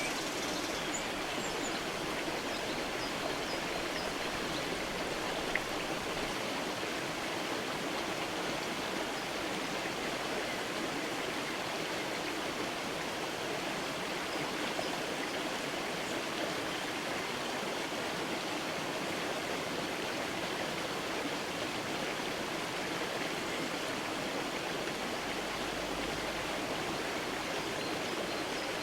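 A mountain creek running steadily under a stone bridge, its water rushing and splashing evenly.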